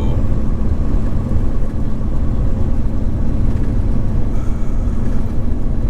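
Semi-truck's diesel engine and road noise droning steadily inside the cab while driving, with one held low hum.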